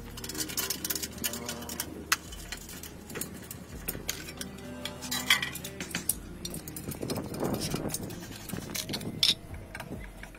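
Hand tools clinking and scraping on the metal of an old air compressor as it is taken apart, a wrench on the electric motor's bolts and a screwdriver in its wired switch box, in many short irregular clicks. Music plays underneath.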